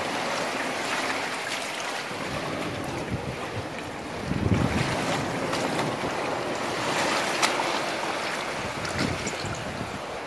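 Shallow seawater sloshing and splashing as someone wades and reaches into it over rock, with wind buffeting the microphone in low rumbling gusts, strongest about four and a half seconds in and again near the end.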